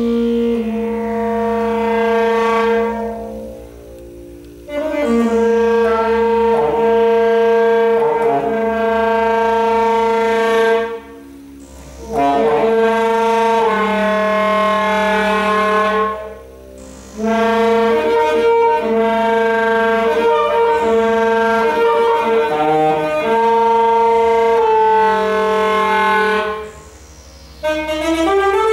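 Unaccompanied saxophone playing long held notes, broken by short pauses every few seconds, with a quick rising run of notes near the end.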